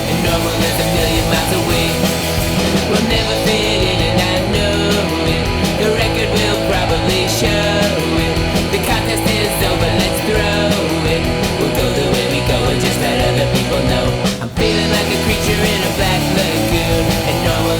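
Loud punk rock music with distorted guitars and drums. It dips for a moment near the end, then carries on.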